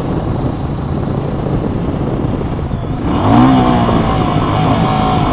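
Yamaha Virago's V-twin engine running on the road, a steady rumble mixed with wind noise. About three seconds in it grows louder, with steady pitched tones over the rumble.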